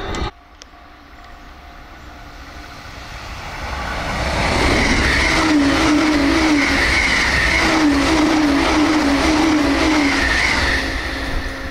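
JR East E657 series limited-express electric train passing close by at about 127 km/h. A rush of wheels on rail and air builds over the first few seconds, then comes a long loud pass with a repeating warbling whine.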